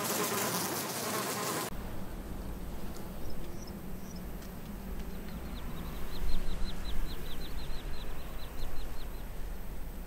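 Honeybees buzzing in flight, cutting off suddenly after about a second and a half. Then a low rumble of wind, with a quick run of high chirps, about five a second, from about five seconds in.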